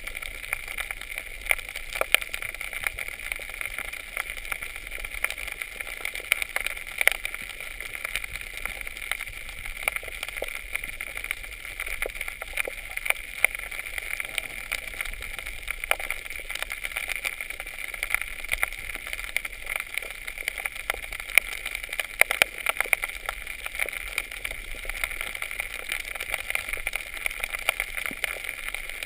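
Underwater reef ambience picked up by the submerged camera: a steady hiss with dense, irregular clicking and crackling throughout.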